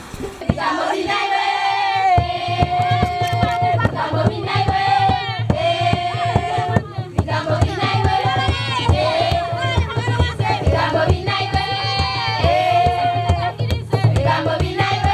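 Music: a song with singing in phrases of long held notes over a steady drum beat.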